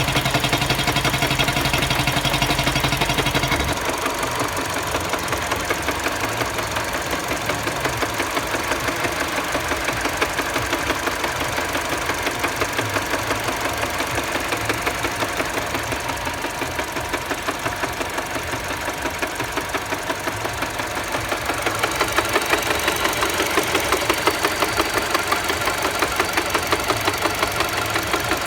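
Mini Cooper engine running with a regular knock, the engine-knocking fault being diagnosed. A deep low hum drops away about four seconds in, and the knocking grows louder about twenty-two seconds in.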